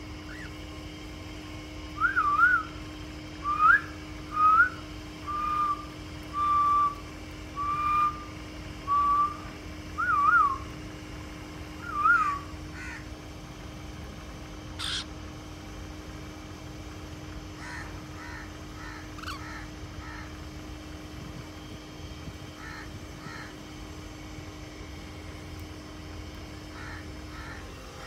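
Cockatiel whistling a run of about nine short notes, some wavering up and down and some held on one pitch. A single sharp click follows a few seconds later, then a few faint chirps.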